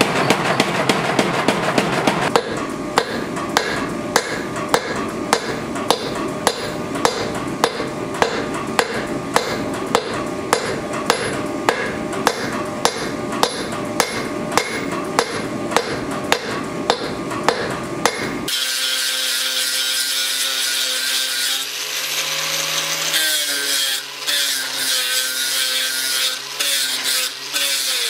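A mechanical power hammer striking hot steel in quick blows for about two seconds. Then a hand hammer striking the glowing cross-guard steel on an anvil in an even rhythm, about one and a half blows a second. From about eighteen seconds in, an angle grinder runs and grinds the steel, its whine wavering and dipping as it bites.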